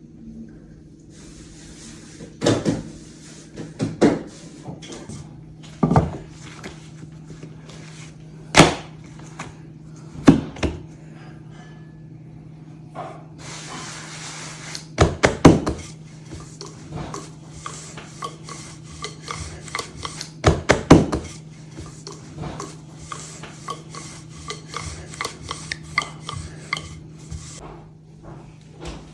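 Kitchen work while preparing dough: about a dozen sharp wooden knocks and utensil clatters at irregular intervals, a few coming two or three close together, over a steady low hum.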